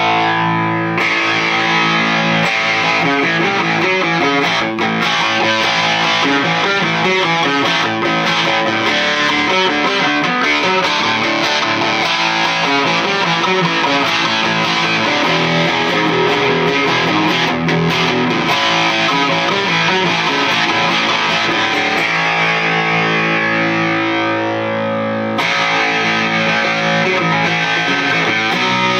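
Electric guitar, an Epiphone Les Paul Standard with Seymour Duncan '59 pickups, played through a Bugera 6260 valve amp head and a 2x12 cabinet loaded with Weber Blue Dog and Silver Bell speakers. The player runs licks and riffs without a break.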